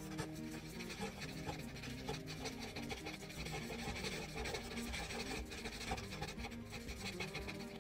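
Black felt-tip marker rubbed back and forth on paper in many quick short strokes, filling in a solid area.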